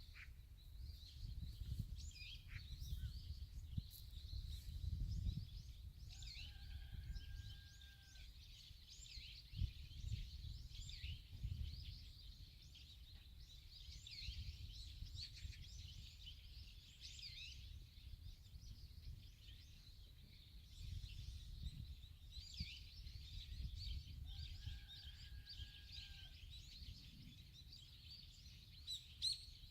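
Many small songbirds chirping and twittering at once, with a low rumbling noise underneath. Twice, a longer, steady, lower-pitched call is held for about two seconds.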